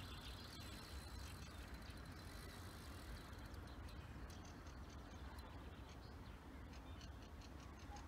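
Faint, irregular ticking of a fishing reel while a hooked carp is being played, over a low steady rumble.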